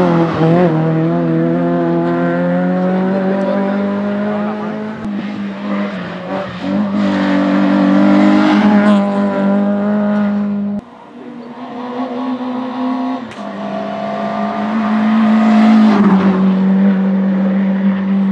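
Hillclimb competition car engines running hard under acceleration, the pitch rising and falling with revs and gear changes. The sound drops off suddenly about eleven seconds in, then builds up again as engine noise rises once more. A steady low drone runs underneath.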